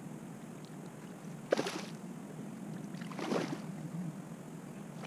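Hooked carp splashing at the surface close to the bank as it is played in: two splashes, about a second and a half apart, the first sudden and the loudest.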